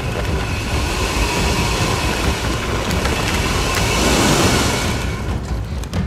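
Off-road 4x4 engine running hard under load as the vehicle drives over leftover log stubs in the snow, a loud dense rumble throughout.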